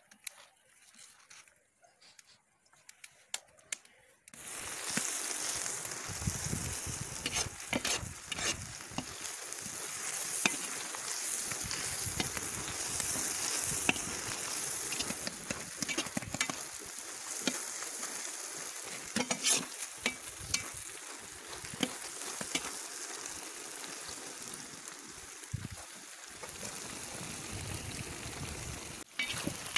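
Sliced onions frying in hot oil in a plov kazan: a loud, even sizzle that starts suddenly about four seconds in, with short clicks and scrapes of stirring throughout.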